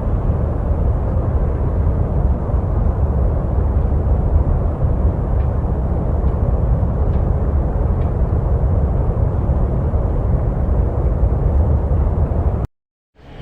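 A steady, deep rumbling ambience with no distinct events apart from a few faint ticks; it cuts off abruptly near the end.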